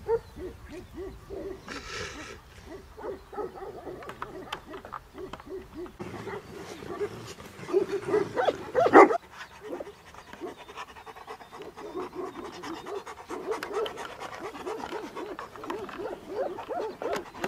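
Several Tibetan Mastiffs at a wire fence panting and giving low, rapidly repeated vocal sounds. One louder woof comes about nine seconds in.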